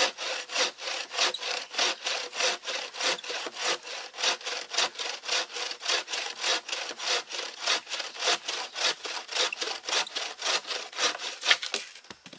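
Homemade bushcraft bow saw, a blade tensioned on a bent green sapling, cutting through a hardwood sycamore log in steady, rapid back-and-forth strokes, about four a second. The strokes stop near the end as the cut goes through, followed by a single short knock.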